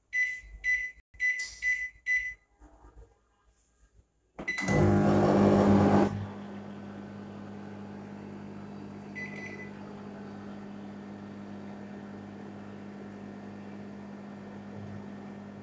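Enviro microwave oven's control panel beeping five times as its buttons are pressed, then the oven starting up about four seconds in with a louder two-second burst of sound and settling into a steady low running hum while it cooks. One more short beep comes partway through.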